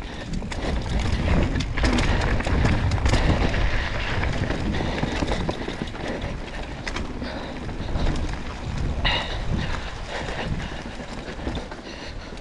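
A mountain bike riding down a dirt trail: a steady rush of wind on the microphone and tyre noise, with frequent short clicks and knocks from the bike over rough ground.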